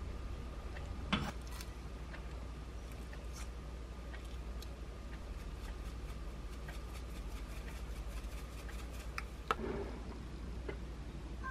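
Quiet tabletop kitchen handling sounds over a steady low hum: a knock about a second in, light scattered ticks while dried parsley is shaken over the dish, and a ceramic bowl set down on the table near the end.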